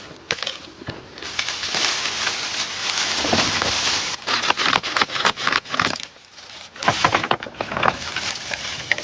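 Bamboo being felled: a long rustling and crackling of bamboo stems and leaves, with many irregular sharp snaps and clicks about halfway through and a second rustle near the end.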